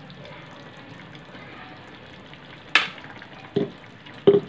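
Chicken sizzling steadily as it fries in its own juices in a pan on the stove. A sharp click comes about three seconds in, then two dull knocks near the end.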